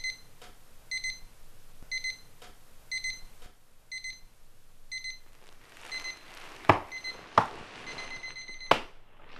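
Alarm clock beeping, one short high beep about once a second. Near the end come a few loud thumps over rustling bedding, and the beeping stops right after the last thump.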